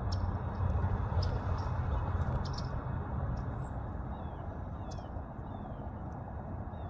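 Red-winged blackbirds calling with short sharp chips, and in the second half a run of quick falling notes, over a steady low rumble.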